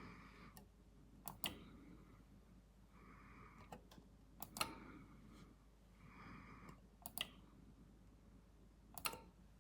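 Kasa HS200 smart light switch clicking several times as it is switched, some clicks in quick pairs.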